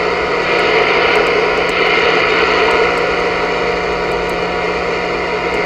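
Steady static hiss with a low hum underneath, from a Voyager VR9000 CB radio's speaker as its receiver is tuned through empty frequencies just above the 11-meter band.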